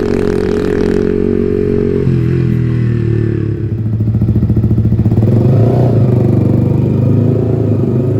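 Yamaha XSR155's single-cylinder engine through an aftermarket Orion header and SC Project slip-on exhaust, running open and loud. The note holds steady, drops in pitch about two seconds in, then settles into a lower, pulsing note that swells louder.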